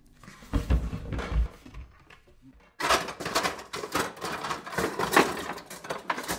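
Rummaging through a low kitchen cupboard: pots, pans and other items clattering and knocking in quick succession, starting suddenly about three seconds in. Before that, a couple of soft low thumps.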